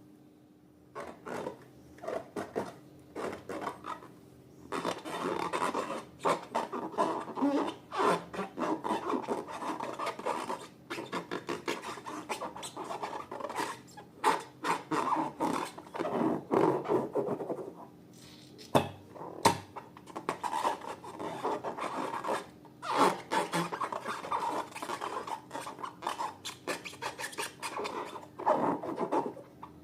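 Slime being worked and stirred: a dense run of quick scraping, rubbing and sticky clicking strokes, with short pauses now and then.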